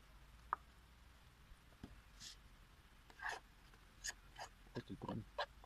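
A speckled saucepan is picked up and tipped over a bowl to pour out porridge. A few isolated clicks come first, then from about three seconds in a run of short scrapes and knocks, more frequent near the end.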